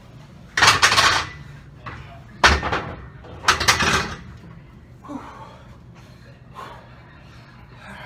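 A man breathing hard after a long set with 100-pound dumbbells: three loud gasping breaths in the first four seconds, then quieter, quicker panting. A heavy thud comes at the start of the second gasp, about two and a half seconds in, as the iron hex dumbbells are set down.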